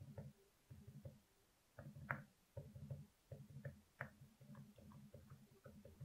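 Typing in quick bursts on a Glorious GMMK Pro keyboard with stock, unlubed Alpaca Silent switches and MT3 keycaps: soft, muffled low key strokes, with a couple of sharper clacks about two seconds in and again about four seconds in.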